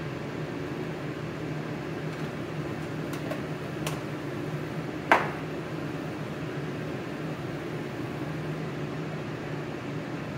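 Steady hum and hiss of a gas burner under a pan of water at the boil. A few light clicks come at about three to four seconds, then one sharp clack about five seconds in as the seasoning can is handled and put away.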